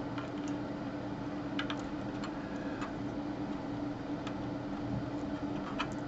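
Light, irregularly spaced clicks and taps as small pieces of a broken clock's circuit board and plastic case are handled and fitted together, over a steady low hum.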